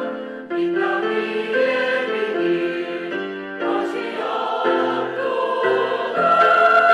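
Church choir singing an anthem in several parts, moving through held chords, getting louder about six seconds in.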